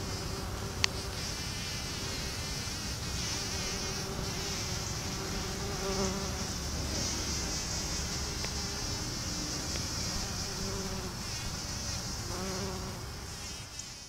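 Bumblebees buzzing on flowers, the buzz swelling and fading several times over a steady high hiss. This is the buzz of buzz pollination (sonication): bees vibrating to shake pollen out of the anthers.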